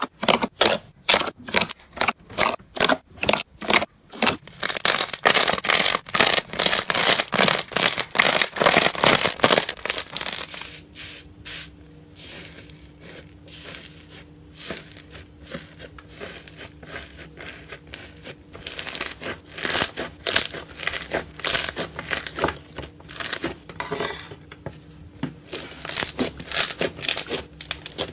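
Slime being squeezed and worked by hand, giving rapid runs of small crackles and pops. The run is busiest in the first ten seconds, thins out in the middle and picks up again near the end.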